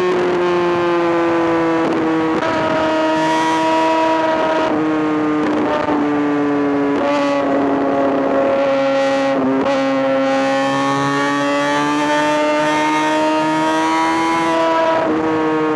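Kawasaki ZX-6R's inline-four engine running at high revs: a steady high-pitched drone that drifts slowly lower, broken by brief dips every few seconds.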